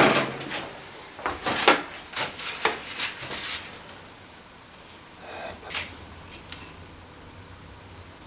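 Workshop handling sounds: a quick run of sharp knocks and clatters at the start, lighter clicks over the next few seconds and one or two more around the middle. After that only a faint low hum is left.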